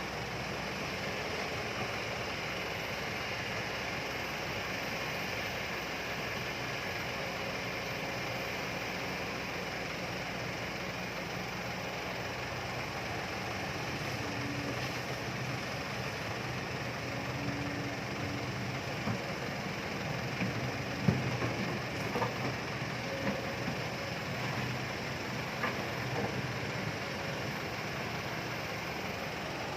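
Kobelco hydraulic excavator's diesel engine running steadily, with a cluster of short sharp knocks and clanks about two-thirds of the way through.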